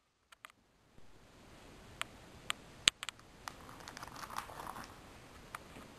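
Plastic binder sleeve pages being handled: a few sharp clicks, the loudest about three seconds in, then a stretch of soft crinkling.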